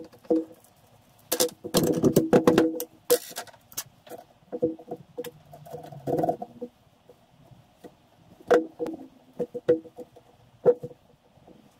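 Metal clinks and knocks as a classic Mini rear radius arm and its small parts and hand tools are handled and the arm is set down on a workbench. There is a dense run of clatter in the first few seconds and another around six seconds in, then sparser single clicks.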